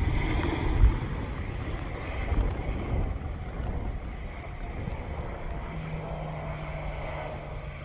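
Wind buffeting the microphone over the rumble of a distant aircraft's engines, with a low steady hum coming in about six seconds in.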